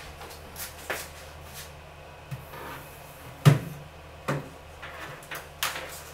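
A handful of separate knocks and clacks, about five spread out, the loudest about halfway through: keyboards being handled and set down on a desk.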